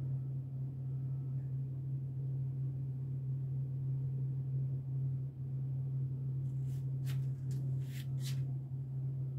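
Steady low hum of a running refrigerator, with a few short clicks near the end.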